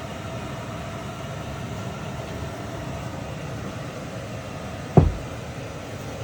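Steady machine hum with a faint whine, with a single heavy thump about five seconds in.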